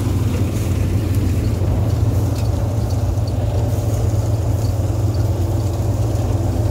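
Paddy threshing machine running steadily while cut rice stalks are fed into it, a constant loud engine-driven hum with a few faint light ticks.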